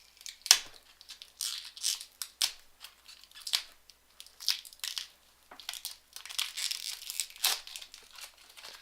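Packaging of a webcam being handled: irregular crinkling and rustling in short bursts.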